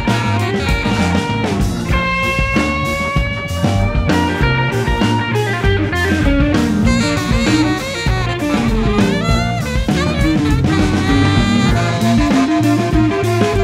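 Live band music: a saxophone leads over electric guitar, bass, drums and keyboards, holding one long note about two seconds in.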